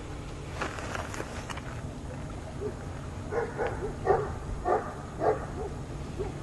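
A dog barking in a row of four barks a little over half a second apart, with a few fainter calls around them, over a steady low background rumble.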